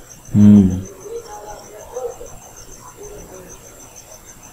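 A man's voice makes one short, loud, low-pitched sound about half a second in. Under it, a steady high-pitched chirping of rapid, even pulses runs throughout.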